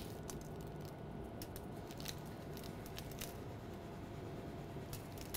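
A few faint, light clicks and crinkles over a low steady background, from ingredient containers being handled over a sheet of aluminium foil.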